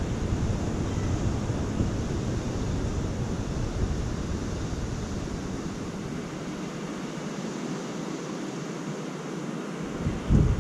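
Strong gusty wind with low rumbling buffeting on the microphone over a steady rushing hiss. The rumble eases for a few seconds past the middle, leaving only the hiss, then gusts hit the microphone hard again near the end.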